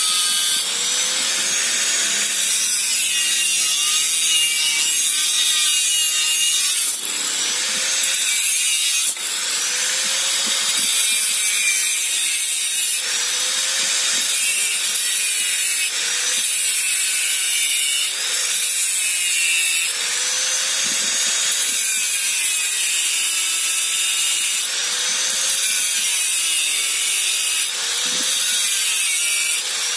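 Handheld angle grinder with a cutting disc cutting through a metal plate: a continuous high grinding screech over the motor's whine. The motor's pitch sags and recovers, and the screech swells, in repeated strokes every couple of seconds as the disc is pressed into the cut.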